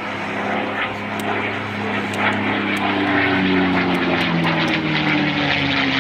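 Propeller warbird's Roush-built Rolls-Royce V-12 piston engine running hard. It grows louder, and its note drops slowly in pitch in the second half as the aircraft goes by.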